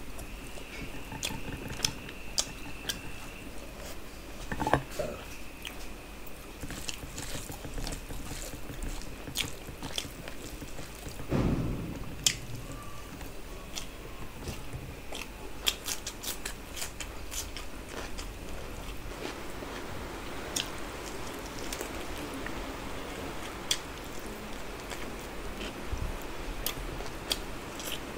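Close-miked eating sounds of a person eating chicken biryani by hand: chewing, with many small wet mouth clicks and smacks scattered throughout.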